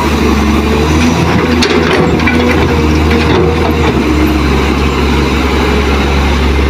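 Kobelco hydraulic excavator's diesel engine running steadily under load while the bucket dumps and swings, with a brief clatter of soil and rocks dropping into the steel dump-truck bed about two seconds in.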